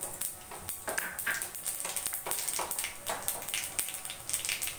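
Nigella seeds (kalo jeere) crackling and spluttering in hot mustard oil in a kadai: a dense run of irregular small pops over a faint steady hiss.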